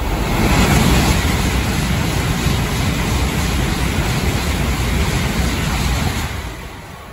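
N700S Shinkansen, a sixteen-car train, passing through a station at high speed without stopping. A loud rush of wheel and air noise builds in the first second, holds steady for about six seconds, then falls away as the tail car goes by.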